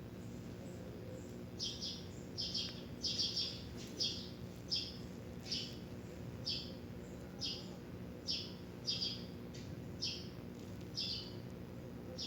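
Steady hum of an idling engine, with short high chirps repeating irregularly about once or twice a second from about a second and a half in.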